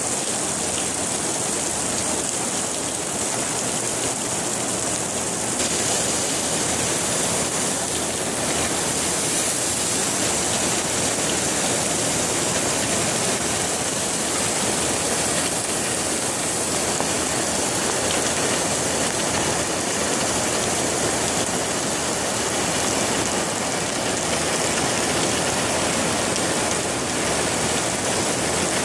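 Rainwater leaking through a shop roof and falling onto wet steel girders and puddled floor: a steady, dense rush of water.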